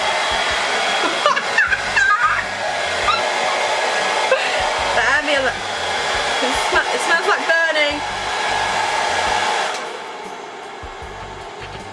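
Hairdryer running on medium heat, blowing into an inflatable bonnet hood: a loud steady rush of air. Wavering squeaks sound over it for much of the middle, and the rush gets quieter about ten seconds in.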